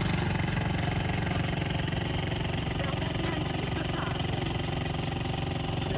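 Small outboard motor on a dinghy running steadily at a low, even speed.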